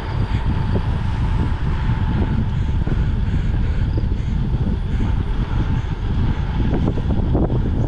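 Wind rushing and buffeting on the microphone of a camera riding along on a road bike, a steady low rumble with flickering gusts.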